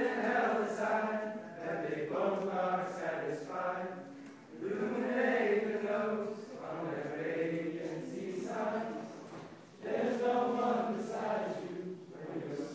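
A group of young men singing together in phrases, with short breaks about four and nine and a half seconds in, to an acoustic guitar.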